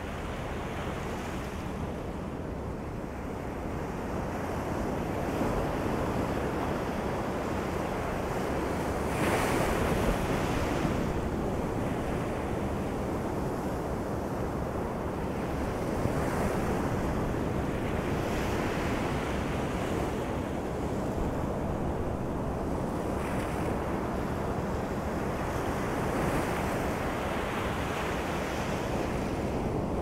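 Ocean waves breaking and washing up a sandy beach: steady surf that swells and falls back every few seconds, with the biggest break about ten seconds in.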